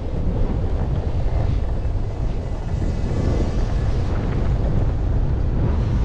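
Steady low rumble of wind buffeting the microphone while riding an electric skateboard, with a jacket flapping in the wind and the rubber wheels rolling over rough asphalt.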